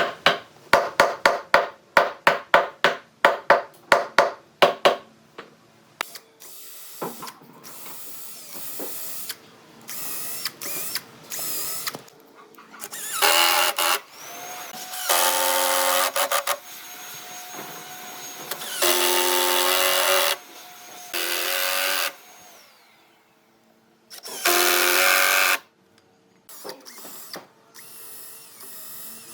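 A quick run of about a dozen sharp knocks, then a power tool run in several short bursts of one to two seconds each, its motor holding a steady pitch.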